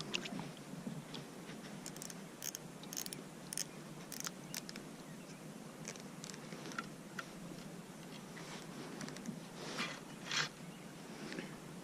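Faint, scattered clicks and light taps from fishing gear being handled in a kayak during a fish fight, with a short louder rustle about ten seconds in.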